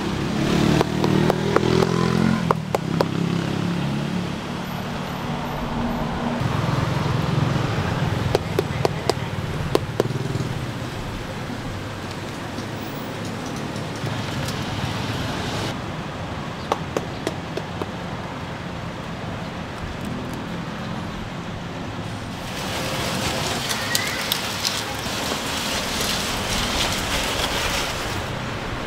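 Road traffic running by a street stall, with scattered sharp knocks of a knife chopping and prying into durian husks.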